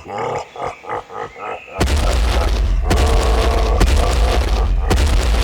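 A light rhythmic music beat, then about two seconds in a sudden loud, deep crash and rumble that runs on: a destruction sound effect.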